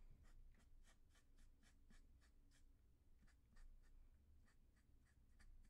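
Thick black Sharpie marker drawing quick short shading strokes on paper: a faint run of scratchy strokes, about four or five a second.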